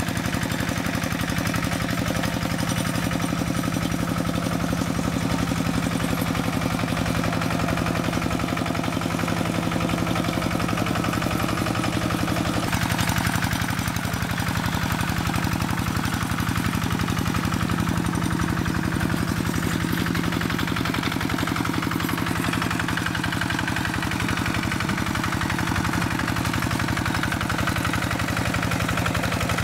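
Single-cylinder diesel engine of a Quick Impala two-wheel hand tractor running steadily under load while plowing a flooded rice paddy, with a rapid, even putt-putt beat.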